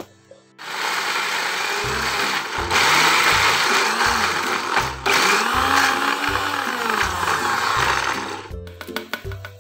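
Electric blender running, grinding chilies, shallots, garlic, candlenuts and tomato into a spice paste; it starts about half a second in, dips once briefly midway, and stops about a second before the end. Background music with a steady low beat plays under it.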